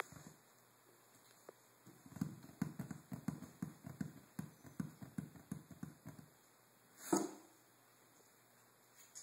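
A quick, uneven run of soft low thumps and taps close to the microphone, about four or five a second, as a kitten scrabbles at the cardboard box and phone. About seven seconds in comes one short, louder sound.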